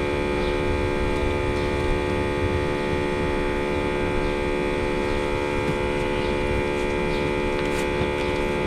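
Small air pump of a budget automotive smoke tester running with a steady hum, pushing smoke into the intake manifold during a vacuum-leak test.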